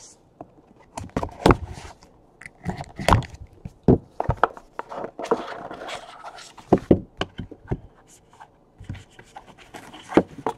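A small cardboard trading-card box handled by hand: a string of taps, knocks and scrapes, with a longer scraping rustle around the middle as it is turned over and its lid comes off.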